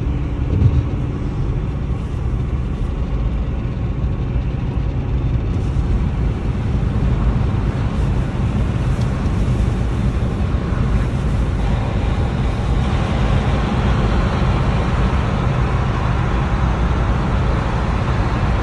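Steady road noise inside a moving car: a low engine and tyre rumble that grows a little fuller and louder partway through, with one short bump near the start.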